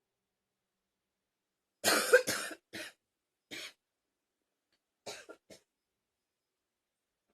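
A person coughing in short fits: a loud double cough about two seconds in, two quieter single coughs after it, then a few small coughs about five seconds in, with dead silence between.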